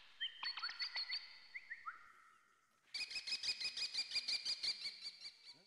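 Birds chirping with short falling whistles. After a brief pause, a cycle-rickshaw's bell is rung rapidly, about nine rings a second, until near the end.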